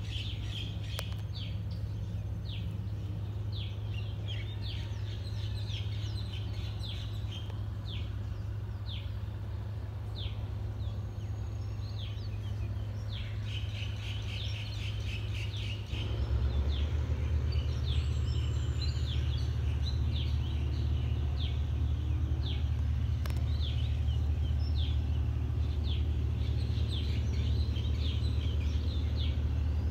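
Small birds chirping repeatedly over a steady low rumble. About halfway through, the rumble suddenly becomes louder and deeper.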